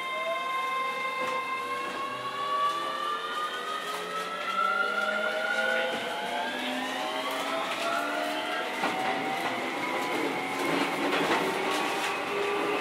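Keio 7000 series electric train heard from inside the car as it accelerates: the traction motor and control whine rises in pitch as several tones climbing in steps, over steady running noise. Rail clicks come in the last few seconds.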